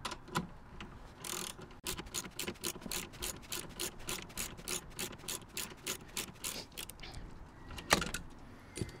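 Ratchet wrench clicking in quick, even strokes, about four a second, as a bolt on the seat's swivel base is turned. A single louder metallic knock follows near the end.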